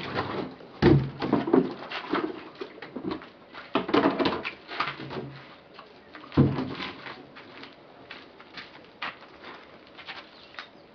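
Irregular knocks and clatter of a plastic basin of water and a plastic jerrycan being handled and set down, with flip-flop steps. The loudest knocks come about a second in and again about six seconds in, then only faint ticks.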